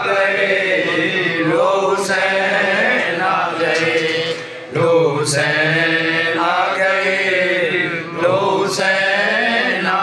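A man's voice chanting a devotional Urdu manqabat into a microphone, drawing out long held, melodic notes that bend and break every second or two.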